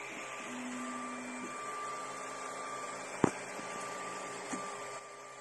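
ERYONE Star One 3D printer running: a steady fan hiss with stepper motors whining in thin tones that start and stop. There is a sharp click about three seconds in.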